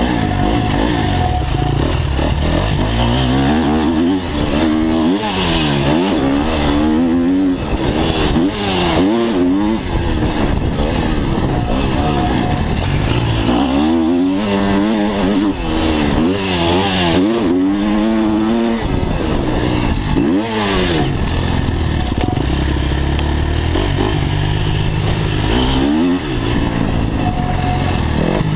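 Motocross bike engine on a lap of a dirt track, heard from on the bike. It revs up hard and drops back again and again as the rider accelerates and shuts off through the corners.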